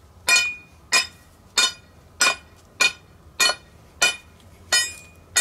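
A mallet striking the end of a metal rod, driving it through the gravel beneath a concrete walkway: nine evenly spaced ringing metallic strikes, about three every two seconds.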